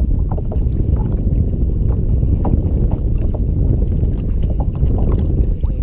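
Steady low rumble of wind buffeting the microphone, with scattered light clicks and taps over it.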